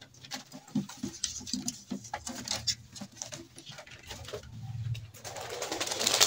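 Domestic pigeons cooing, with scattered sharp taps and knocks. A broad rush of noise swells near the end.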